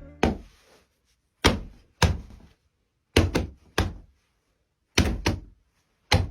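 Foley punch sounds: a boxing glove striking a suitcase with jeans, about nine dull thuds, some in quick pairs. The suitcase's hollow body gives each hit a fuller sound.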